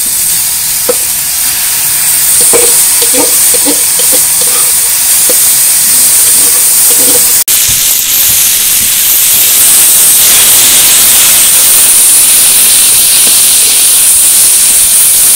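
Steamed taro leaves (kochu shak) frying in hot oil in a wok: a loud, steady sizzle, with a few light clinks in the first half.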